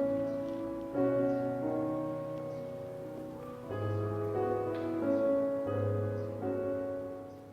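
Slow, soft piano music: sustained chords changing every second or two, with a low bass note under them.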